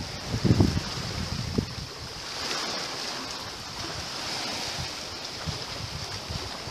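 Small sea waves lapping and washing on a sandy, rocky shore, with wind on the microphone. A few low thumps about half a second in are the loudest sounds, and the wash swells briefly a little past two seconds in.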